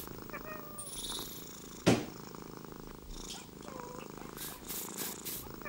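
A cat purring in a low, steady rumble, with a single sharp click about two seconds in.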